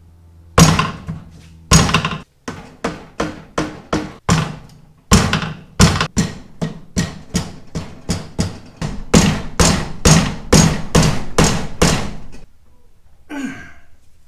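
Hammer blows on the aluminium crankcase of a Harley-Davidson Shovelhead engine, struck to split the case halves: about thirty sharp strikes, roughly three a second, which stop near the end.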